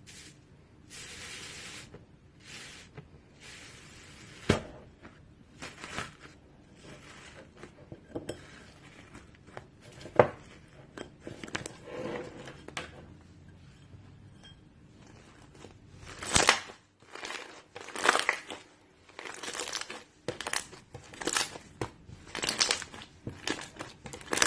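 Slime being squeezed, pressed and pulled by hand: irregular crackling, crunchy squishes, with a few sharp pops standing out.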